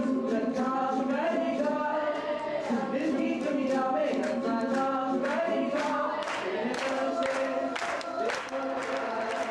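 A Hindi song with sung vocals and music. Clapping from an audience joins in during the second half.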